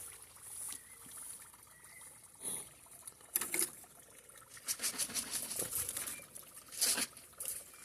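Pond water trickling, with scattered clusters of quick, light patters and splashes at the surface, the busiest run about five seconds in.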